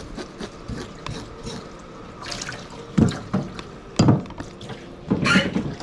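Tap water running into a stainless-steel sink, with a knife scraping the scales off a scorpionfish in quick rasps and two sharp knocks about three and four seconds in.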